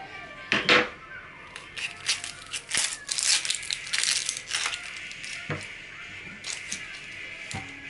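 Dry papery onion skin crinkling and tearing as a white onion is peeled and trimmed with a chef's knife, with the paper sheet under it rustling. Irregular crisp rustles and clicks, busiest in the middle, with a few sharper knocks on the cutting board.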